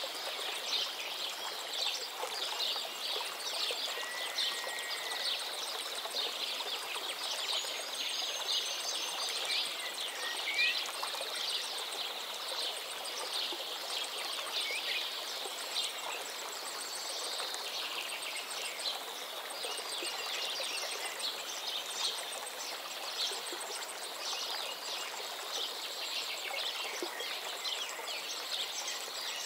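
Nature ambience: a dense chorus of small birds chirping and twittering, with a few short whistled calls, over a steady rushing background noise.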